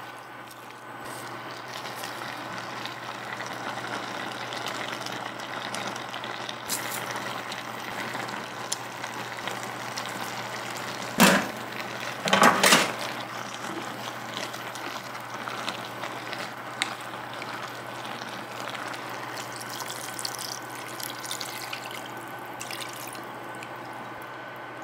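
Kimchi and pork sizzling as they are stir-fried in a pot, stirred with a wooden spatula. About halfway through come a few sharp knocks.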